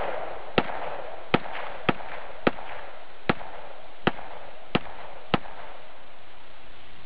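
A string of eight sharp gunshots, irregularly spaced about half a second to a second apart, over a steady hiss.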